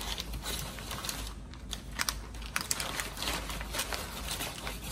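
A long slicing knife sawing through the crisp, crusty bark of a smoked brisket: a run of small irregular crackles and crunches, with the butcher paper under the meat crinkling.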